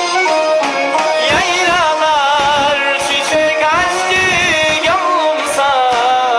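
Background music in a Middle Eastern folk style: instruments playing, with a singing voice carrying a wavering, ornamented melody from about a second in.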